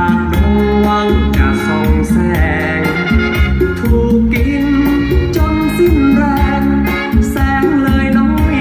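A song with singing and heavy bass played loud through a car's sound-quality (SQL) audio system.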